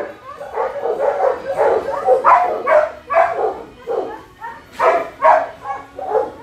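Dogs in shelter kennel pens barking and yipping, a quick string of short barks about two a second.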